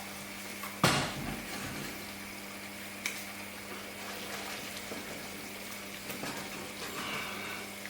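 Curry sauce simmering and sizzling in a pan as it cooks down: a steady hiss over a low steady hum, with one sharp knock about a second in.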